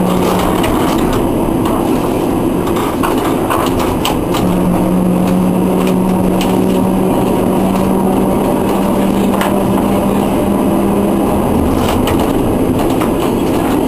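Historic tram running on street track, heard from its cab: a steady rumble and rattle with scattered clicks and knocks from the wheels on the rails. A low steady hum drops out about half a second in, returns about four seconds in, and stops a couple of seconds before the end.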